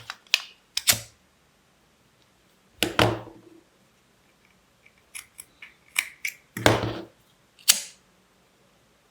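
Scissors snipping the end of a ribbon: about ten short, sharp snips and clicks in irregular clusters, the loudest about three seconds in and again near seven seconds.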